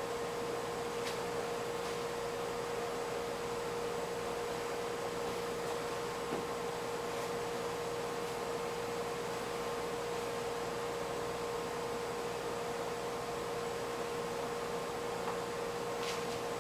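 A steady hum held at one pitch over an even background hiss, with a couple of faint clicks, about a second in and near the end.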